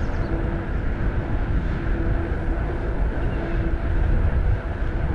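Wind rushing over the microphone of a bicycle riding along a road, with tyre noise: a steady low rumble.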